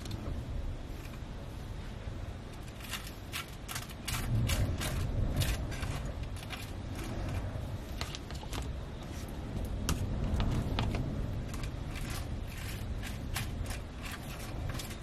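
Storm wind gusting against a motorhome: a low, steady rumble that swells about four seconds in and again around ten seconds, with many scattered sharp ticks and rattles.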